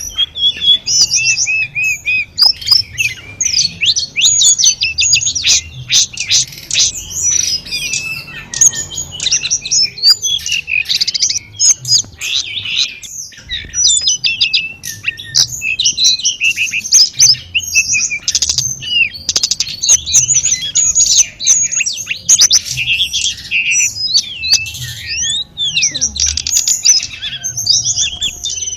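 Tledekan gunung (Sunda robin) singing a long, varied song of rapid chirps, trills and whistled glides with hardly a pause, over a faint low background.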